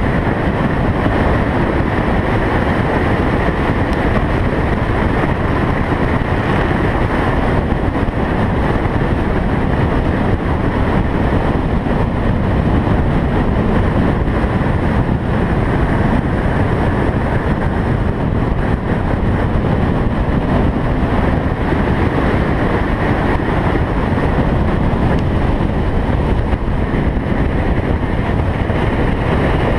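Car driving at speed, heard from a camera on its hood: a steady rush of engine, tyre and wind noise with wind buffeting the microphone.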